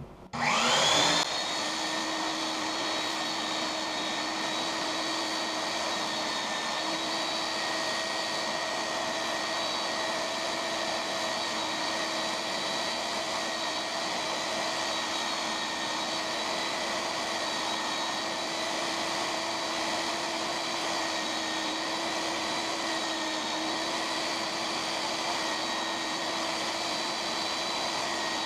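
Small electric belt sander switched on, its motor whining up to speed within about a second, then running steadily while a piece of plastic water pipe is held against the belt to round its edges.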